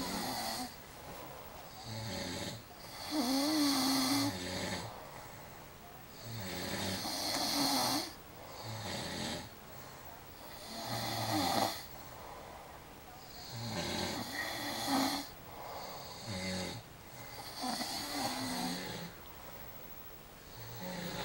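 A person snoring in sleep, a loud rasping snore about every four seconds with quieter breaths between.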